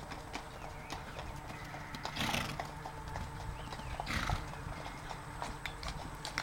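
Pony's hoofbeats cantering on an arena's sand, a run of soft thuds, with two louder rushing noises about two and four seconds in.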